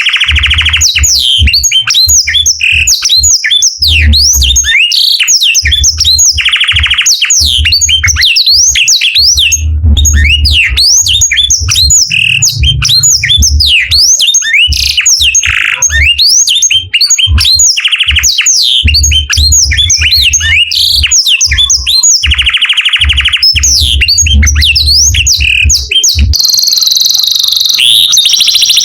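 Canary singing a long, fast song of rapidly repeated chirps and rolls, broken by buzzy trills about a second long. Near the end, the song gives way to steadier high tones and a rising whistle.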